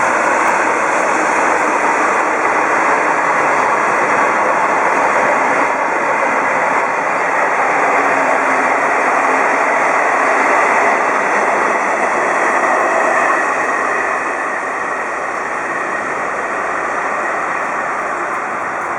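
Steady, loud rushing noise of a vehicle travelling at speed, easing slightly a few seconds before the end.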